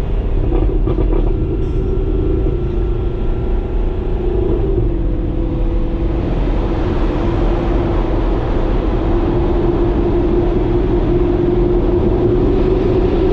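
Audi R8's 4.2-litre V8 heard from inside the cabin, driven hard with a steady engine note that dips briefly about four and a half seconds in, then holds while road and wind noise build.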